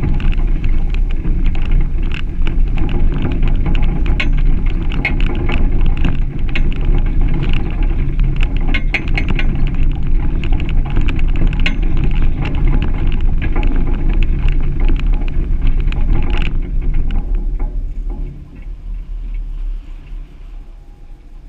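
Suzuki Grand Vitara driving slowly over a rutted gravel track: a loud, steady rumble of tyres and suspension with frequent sharp knocks and stone crunches. The sound falls away near the end as the vehicle slows to a stop.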